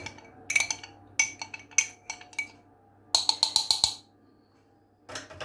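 A spoon clinking against a glass jar while stirring honey into onion juice: a string of short ringing clinks about every half second, then a quick flurry of clinks about three seconds in.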